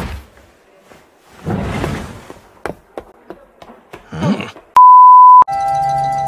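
A loud, steady electronic beep at one pitch, about two-thirds of a second long, starting and stopping abruptly a little past the middle. Before it come a noisy burst, a few clicks and a short vocal sound; right after it a held electronic chord of several tones fades out.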